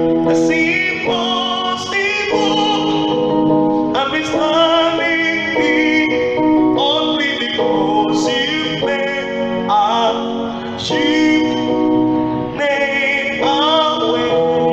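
A man singing a worship song into a microphone while playing held chords on an electronic keyboard, his voice wavering over chords that change every second or two.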